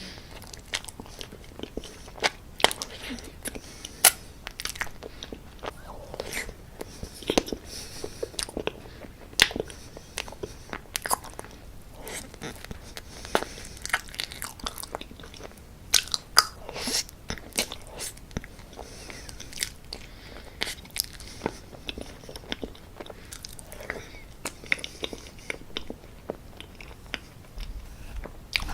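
Close-miked eating of profiteroles: biting and chewing with many short, sharp crunching and clicking mouth sounds.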